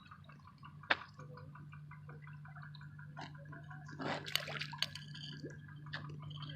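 Water dripping and splashing in small drops, with scattered sharp clicks (one loud click about a second in, a busier cluster around four to five seconds) over a steady low hum.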